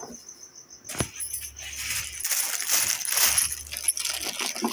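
Plastic bubble wrap crinkling and crackling as it is wrapped around a plastic snack container, after a sharp click about a second in.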